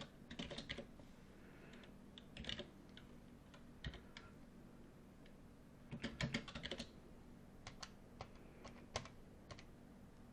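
Faint typing on a computer keyboard in a few short bursts of clicks, over a low steady hum.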